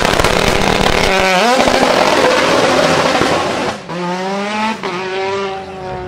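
Tuned Mitsubishi Lancer Evo's turbocharged 4G63 inline-four launching at full throttle, with a heavy wash of noise and climbing revs for the first few seconds. Two quick upshifts come about four and five seconds in, then the sound fades as the car pulls away.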